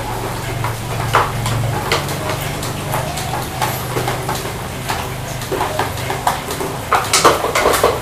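Light clicks and taps of a crow handling a plastic ball and hopping about on a wooden pallet, thickening into a quick run of taps about seven seconds in, over a low steady hum in the first half.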